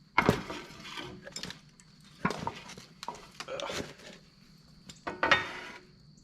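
Small metal pieces clinking and clattering as they are handled and set down, in four short bursts with pauses between.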